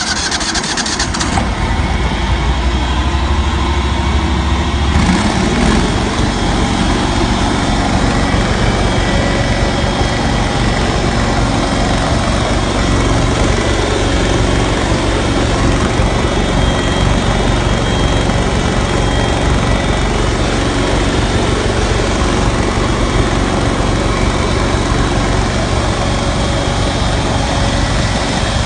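Carpet-cleaning truckmount running just after starting: its 20 horsepower Kohler engine and 406 tri-flow vacuum blower. It runs loud and steady, with a shift in the sound about five seconds in.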